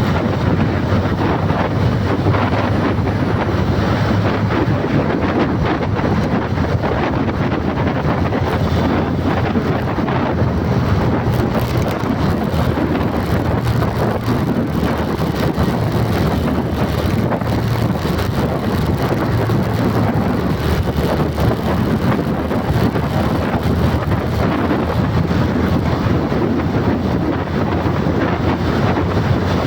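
Steady, loud rushing of wind on the microphone, unbroken, with a low hum underneath.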